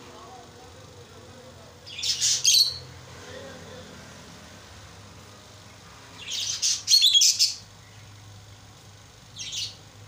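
Pair of peach-faced lovebirds chirping in three shrill bursts of rapid chirps, about two seconds in, a longer and louder run around the middle, and a short one near the end.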